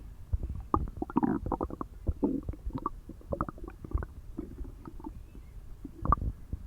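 Loud stomach growling from an empty stomach after a day without food: a run of gurgles, pops and squeaks, with a louder gurgle near the end.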